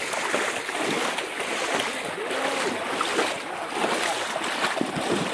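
River water rushing and splashing steadily at a shallow ford.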